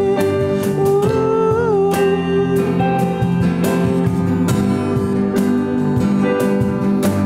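Alternative-rock song played live by an acoustic trio: strummed acoustic guitar with keyboard and cajon. Long held notes, one of which bends in pitch about a second and a half in, sit over regular percussive hits.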